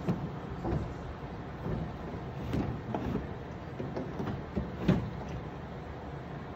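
Low, steady rumble with a scattering of soft knocks and thumps, the loudest about five seconds in.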